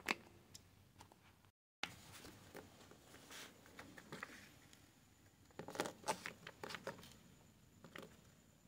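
Faint, irregular clicks and scratching of a plastic spirograph gear being turned with a pen inside a toothed ring on paper, busiest a little past halfway.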